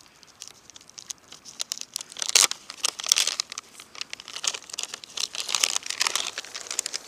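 Plastic dog-treat pouch crinkling and rustling in hands, with sharp crackles throughout that are loudest in the middle; the bag is being handled to lure the dogs in with treats.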